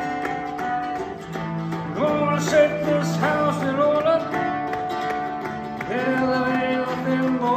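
A man singing a song, accompanying himself on a strummed mandolin-family string instrument. The singing comes in about two seconds in, pauses, and resumes near the end over the held chords.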